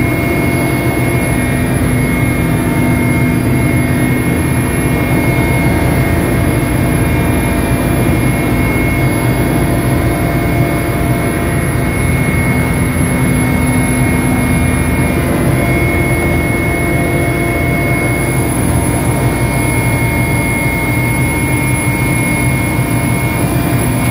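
Mi-8 helicopter's twin turboshaft engines and transmission running steadily, heard inside the cockpit: a dense, even rumble with a steady high whine over it.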